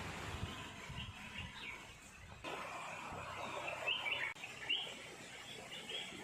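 Small birds chirping in short repeated notes over the steady rush of a small waterfall; the water and the chirping grow louder about two and a half seconds in.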